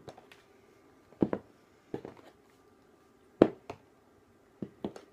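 Irregular knocks and clacks of hard objects being handled, about eight in all, some in quick pairs, the loudest about three and a half seconds in.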